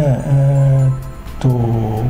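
A man's voice holding a long drawn-out 'ne' and then a long hummed filler sound at a steady low pitch, twice, without words.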